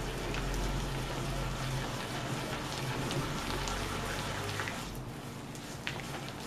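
A hand beating vegetable shortening and sugar against a glass bowl, a steady crackly squishing with small ticks, as the mixture is creamed. A low hum runs under it and fades about five seconds in.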